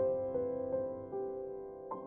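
Background piano music: soft single notes struck about every half second, each ringing on and fading.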